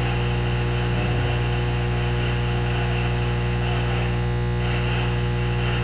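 Steady electrical hum with several overtones over a constant hiss, unchanging throughout.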